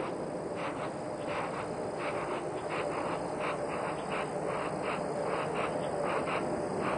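Chorus of night insects chirping: short pulses repeating irregularly a few times a second over steady background noise.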